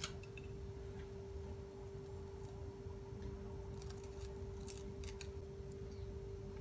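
Scissors cutting the cooking thread that ties a roast chicken: a sharp click at the start, then a few faint, spaced-out snips, over a steady low hum.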